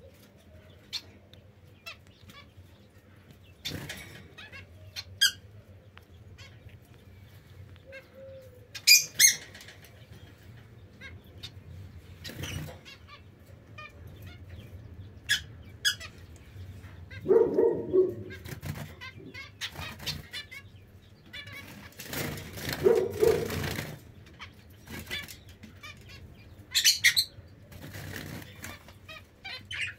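Caged zebra finches and society finches: brief wing flutters and two longer flurries of flapping about two-thirds of the way through, with scattered short chirps, the loudest calls about a third of the way in and near the end.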